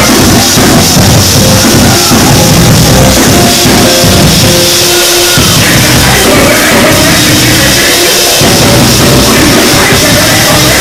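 Loud live gospel praise music from a church band: drum kit with bass guitar and keyboard, and a tambourine struck along.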